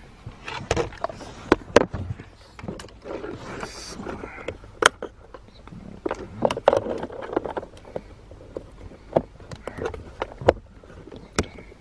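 Scattered sharp plastic clicks and knocks with rustling: a 12 V accessory plug being handled and pushed into a car's centre-console power outlet.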